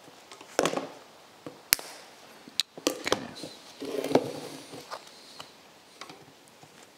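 Needle-nose pliers working split pins out of a cast Fiat brake caliper: a string of about half a dozen sharp metallic clicks and knocks, with a short scrape of the caliper being turned over a little past the middle.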